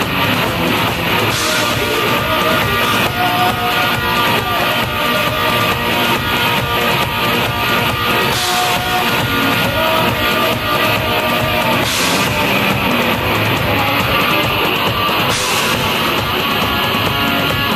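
Live rock band playing loudly: electric guitar and drum kit, with cymbal crashes every few seconds and a woman singing into the microphone.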